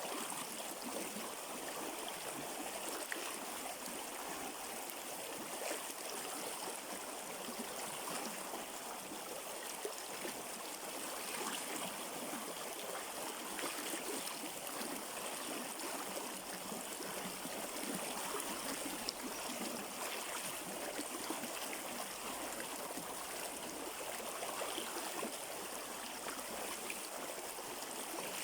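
River water flowing in a steady, even rush, with fine splashing detail throughout.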